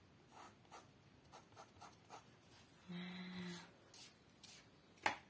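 Crayon rubbing on paper in quick, even coloring strokes, about four a second, that stop after two seconds or so. A short low hum follows near the middle, and a single sharp click sounds near the end.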